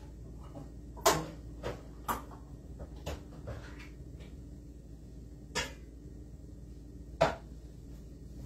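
Scattered knocks and clunks of kitchen things being handled, about seven in all, the sharpest about a second in and again about seven seconds in, over a low steady hum.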